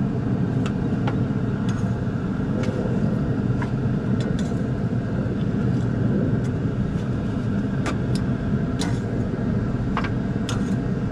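Open cooking fire under a grill of burgers and hot dogs, crackling and popping a dozen or so times over a steady low rumble.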